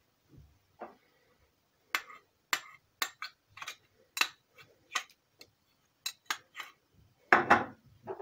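A metal spoon tapping against a small ceramic dish and a stainless steel pot, about a dozen sharp clicks at roughly two a second, as sugar is knocked into the pot; a louder clatter of crockery near the end.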